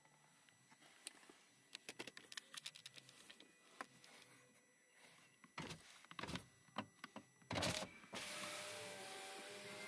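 Toyota Corolla's door window switches clicking and knocking as they are worked, then a loud clunk about three-quarters of the way in and the electric window motor running steadily.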